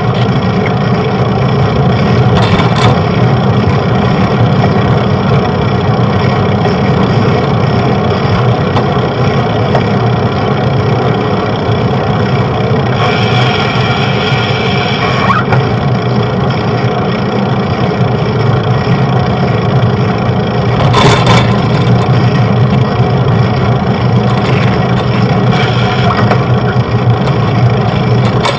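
Steady, loud engine-like drone of vehicles and traffic. Brief louder swells come about three seconds in, around thirteen to fifteen seconds, and near twenty-one seconds.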